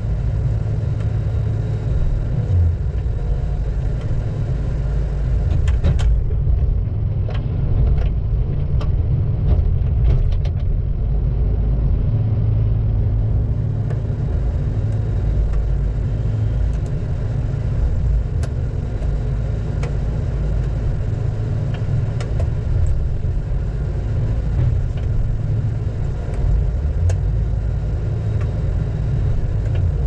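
Diesel engine of a piece of heavy logging equipment running steadily with a low rumble, with a few light clicks and knocks between about six and eleven seconds in.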